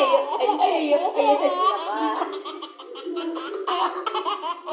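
Baby laughing in repeated bursts of giggles while being played with, dipping briefly about midway.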